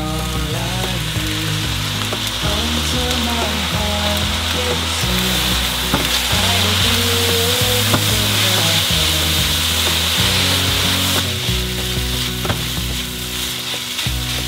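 Egg fried rice sizzling in a hot nonstick wok, with sauce drizzled along the side of the pan hitting the hot metal, while it is stirred and tossed with a silicone spatula. The steady hiss carries small clicks and scrapes from the spatula.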